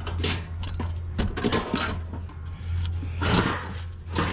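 Scrap steel being shoved and scraped into place in the back of a vehicle: repeated scrapes and knocks, loudest about three seconds in, over a steady low hum.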